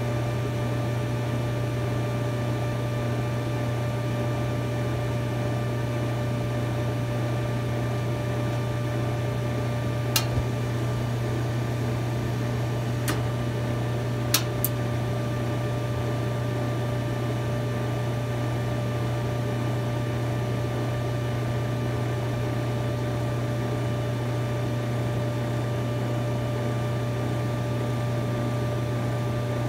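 GE gas dryer running with a steady, even hum. Near the middle comes a short run of four sharp clicks from the burner assembly as the igniter and gas valve cycle; the uploader traces the burner going out after a few seconds to failing gas valve coils.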